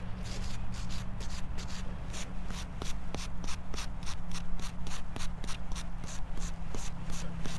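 Short scratchy brushing strokes, about four a second, as a small brush cleans soil off a freshly dug-up metal find, with a steady low hum underneath.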